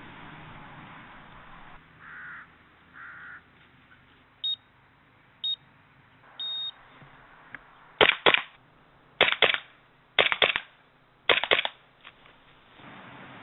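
Three electronic start beeps, two short and a third held longer, then four quick bursts of two or three airsoft gun shots about a second apart, as in a timed sport-shooting stage.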